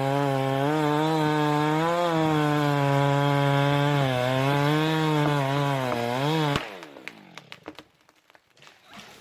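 Two-stroke chainsaw running under load in wood, its pitch dipping and recovering as the chain bites. About six and a half seconds in it is shut off and winds down quickly, leaving only faint scattered clicks.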